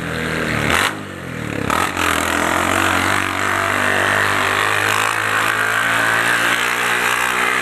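Honda Titan 150 single-cylinder motorcycle engine running through a short straight-cut exhaust ("cano direto"). Its revs rise, break off briefly about a second in and again just under two seconds in, then hold a steady drone as the bike is ridden along.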